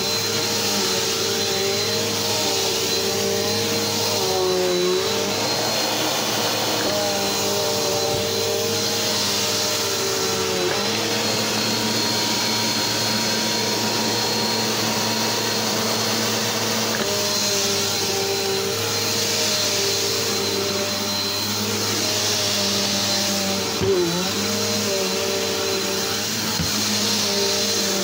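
Upright vacuum cleaner with a belt-driven brush roll running steadily over carpet, its motor hum wavering in pitch as it is pushed back and forth, with a brief knock about 24 seconds in.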